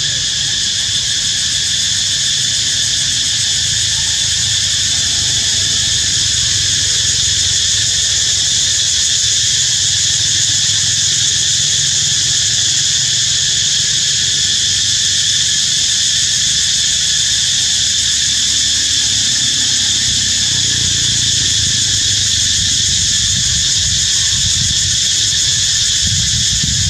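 Steady, high-pitched insect chorus droning without a break, with a low rumble underneath.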